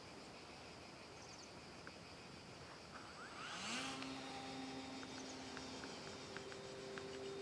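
Electric motor and propeller of an RC electric glider spinning up about halfway through with a quick rising whine, then running at a steady pitch, over faint wind noise.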